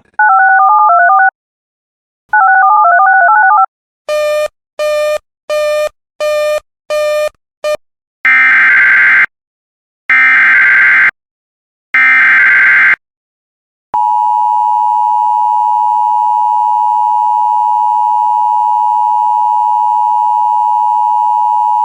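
Emergency Alert System tones: two short runs of warbling electronic beeps and a quick series of short beeps, then the SAME header, three one-second bursts of data screech. About 14 seconds in the steady two-tone attention signal starts and holds, the signal that a new alert is about to be read.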